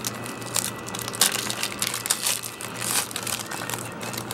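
Trading card pack wrapper crinkling and crackling irregularly as it is torn open and handled.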